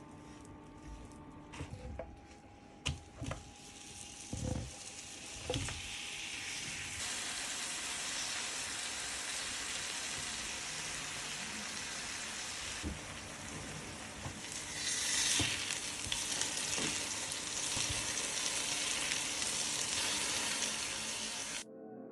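Butter sizzling in a frying pan. There are a few knocks and clinks in the first few seconds, then the sizzle builds into a steady hiss and cuts off suddenly near the end.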